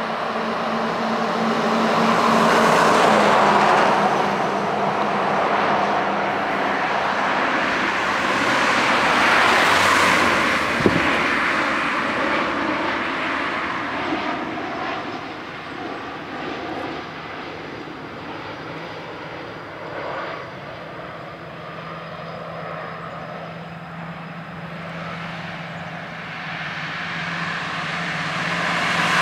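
Cars passing on a two-lane road: tyre and engine noise swells as each car goes by, twice in the first half, then builds again near the end as another car approaches. A single sharp click about eleven seconds in.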